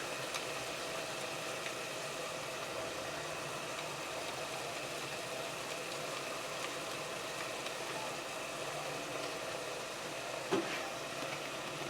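Faint steady hum and hiss from the stovetop where chicken is cooking in oil in a pot, with one soft knock about ten and a half seconds in.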